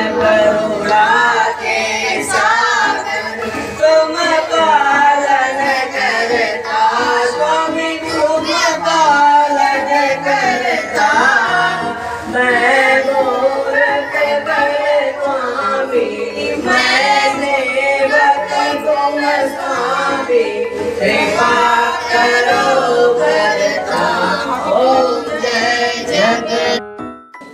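A song with singing over instrumental accompaniment, running continuously and cutting off near the end.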